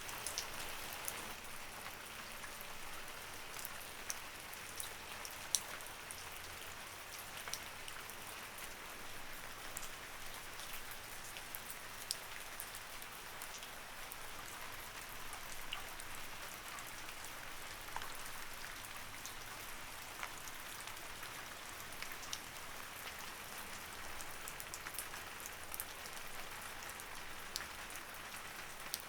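Light rain falling steadily: an even hiss with many separate drops ticking on a surface.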